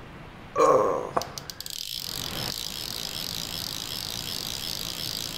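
Fly reel's click-and-pawl drag ratcheting in a fast, steady buzz as line runs through it under the pull of a hooked trout, starting about two seconds in after a few sharp clicks. A short loud burst comes about half a second in.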